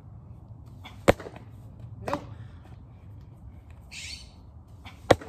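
Sharp knocks of a baseball meeting a leather glove and the ground during a fielding drill: a loud crack about a second in, a ringing knock a second later, and another crack near the end. A bird gives a short harsh squawk about four seconds in.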